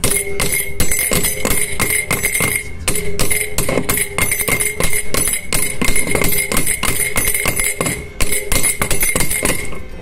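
Quick light hammer taps, about four a second, on an open-end wrench used as a drift to drive a new ball bearing down a centrifugal water pump's motor shaft, with the steel ringing a steady high tone between strikes. The bearing is still moving along the shaft and has not yet reached its seat.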